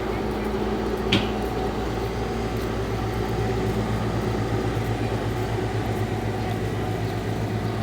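A steady low machine hum made of several constant tones, with one sharp click about a second in.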